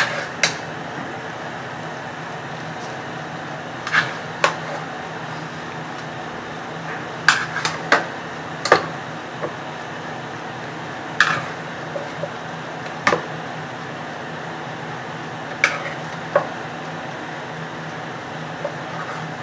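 A serving spoon clinking and scraping against cookware as curry is dished out: sharp single clinks, often in pairs, every few seconds, over a steady low hum.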